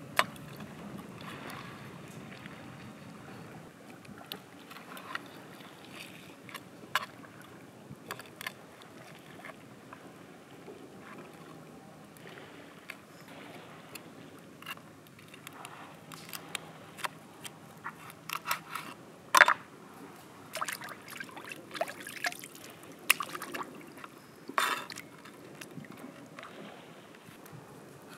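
Cleaver blade scraping and tapping against a fish and a wooden cutting board as the fish is slit open and gutted, in irregular sharp clicks and scrapes, a few louder knocks over the second half. Under it, a soft steady wash of shallow water.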